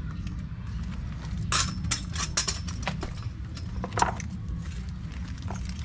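Small metal parts clinking and clicking as screws and a ratchet screwdriver are handled, with a few sharp clicks clustered between about one and a half and four seconds in. A steady low rumble sits under it.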